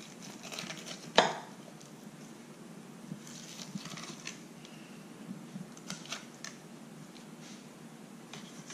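Fillet knife slicing along the backbone of a smooth puffer on a wooden cutting board: faint scraping cuts with a few light clicks, and one sharp knock about a second in.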